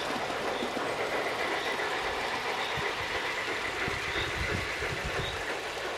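Garden-scale model train running along its track, a steady rolling noise with a few low knocks from the wheels partway through.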